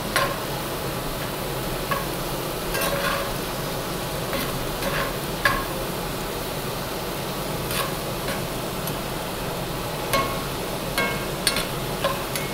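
Chopped onions and bell peppers sizzling in a cast-iron skillet, stirred so that the utensil scrapes and clicks against the pan every second or two.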